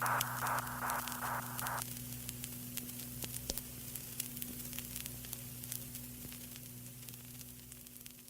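Crackling static over a low electrical hum, with scattered sharp pops, fading out gradually.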